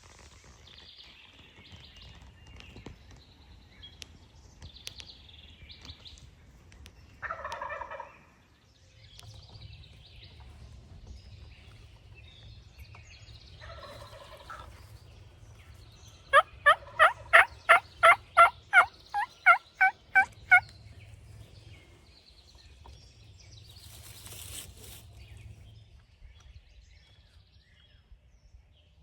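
Wild turkeys calling: a gobble about seven seconds in and another near fourteen seconds, then a loud run of about fourteen sharp, evenly spaced yelps over four seconds. Faint small-bird chirps sound in the background.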